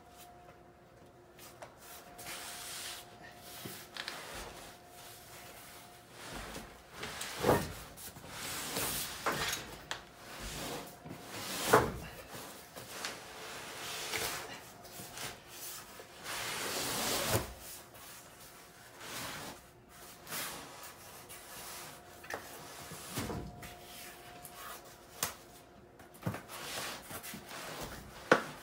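Cardboard cases of toilet paper being shifted and stacked by hand: irregular scraping and rubbing of cardboard, with several dull thumps, the loudest about twelve seconds in.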